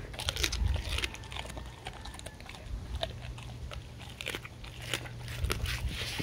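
A dog chewing raw gilt-head bream, with irregular wet crunches and snaps as its teeth break through the fish.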